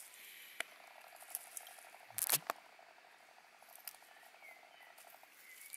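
Leaves and grass rustling and crackling as a hand pulls a leaf aside, with one louder rustle about two seconds in and scattered small clicks, over a faint steady fast ticking in the background.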